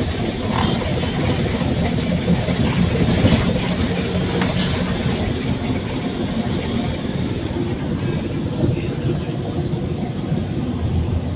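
Steady engine and road rumble heard from inside a bus cabin.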